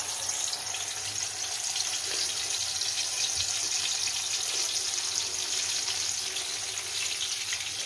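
Masala-coated white pomfret frying in hot oil in a pan. It gives a steady, hissing sizzle with a fine crackle, right after the fish has been laid into the oil.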